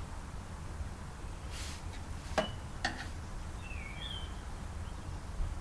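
Two sharp clicks about half a second apart over a low steady rumble, followed by two short high chirps from a bird.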